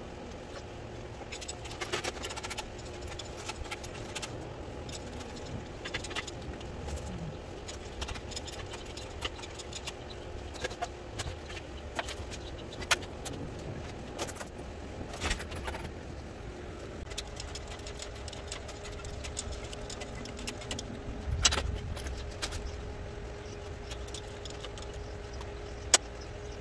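Engine hoist chains clinking and metal parts clanking as the chains are hooked to an engine and it is lifted: scattered sharp metallic clinks, a few louder clanks among them, over a steady low hum.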